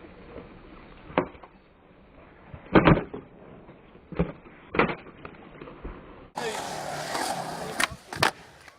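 Skateboard sounds: a few sharp knocks and clacks of the board over a low rolling rumble. About six seconds in, the sound changes abruptly to louder rolling noise, and two more sharp clacks follow close together near the end.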